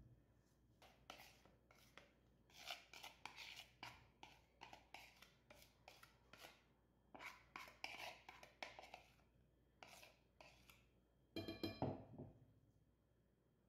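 Faint, irregular rubbing and scraping of gloved hands mixing food in a ceramic bowl, with a louder clatter of a metal utensil against the bowl about eleven and a half seconds in.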